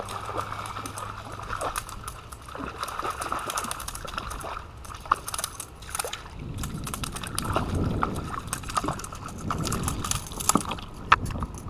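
Shallow water sloshing and lapping against a rocky shoreline, with many scattered sharp clicks and small splashes.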